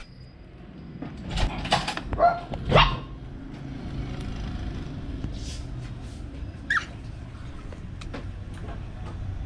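Handling noise: rustling and a few loud knocks between one and three seconds in. A brief high, falling squeak from a baby marmoset comes near seven seconds.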